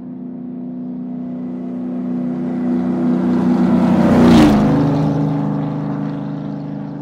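A land-speed race car's engine running at speed as the car passes by. The note grows steadily louder and peaks with a short rush of noise about four seconds in. Its pitch then drops and it fades away.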